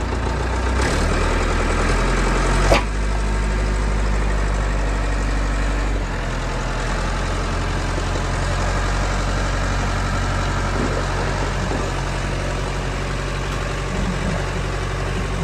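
An engine running steadily under load as it hauls a narrowboat on its trolley up a slipway out of the water. Its note shifts about a second in and again about six seconds in, and there is a single sharp knock a little under three seconds in.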